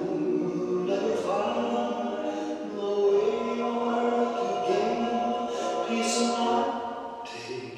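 Vocal music in which a group of voices sings slow, held notes, choir-like, with no clear beat.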